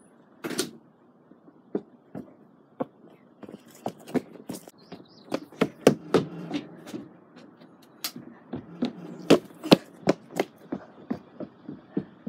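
An irregular series of sharp taps and knocks close to the microphone, sparse at first and coming thicker and louder in the second half.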